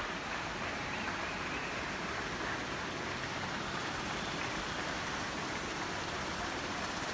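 Applause from many people at once, blending into a steady, even patter with no single claps standing out.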